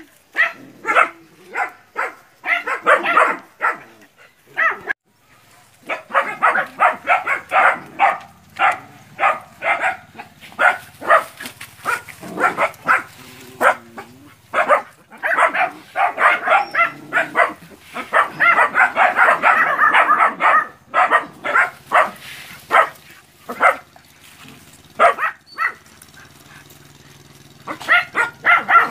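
Several puppies barking and yapping at a water buffalo in rapid, overlapping runs of short, high barks. The runs pause briefly about four seconds in and again near the end.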